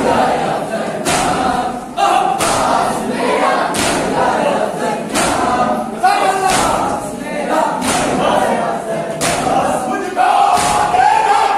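A crowd of men chanting a Muharram noha together, with loud chest-beating (matam) slaps landing in time roughly every one to one and a half seconds.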